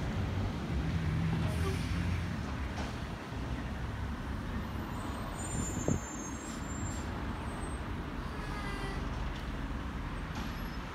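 Labrie garbage truck's diesel engine running at a distance in a steady low rumble, with one short sharp sound about six seconds in.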